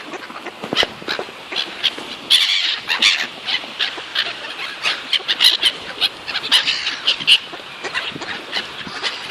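A flock of birds calling, many short sharp calls overlapping in quick succession as they swoop in for food being handed out.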